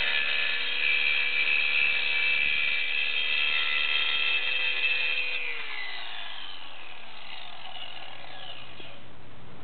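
Circular saw with a diamond masonry blade running as it scores concrete, a steady high whine. About five seconds in the saw is switched off and the whine falls in pitch as the blade spins down.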